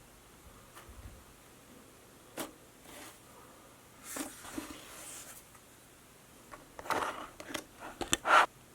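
Plastic slime containers being handled: scattered clicks and light scrapes, with a busier run of louder clicks and rustling near the end.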